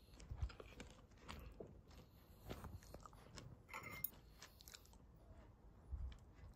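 Faint chewing and crunching of food close to the microphone, in short irregular bites.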